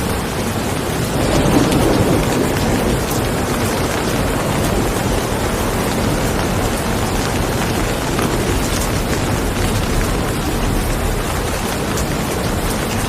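Steady rain falling, with a low rumble of thunder that swells about a second in and fades over the next couple of seconds.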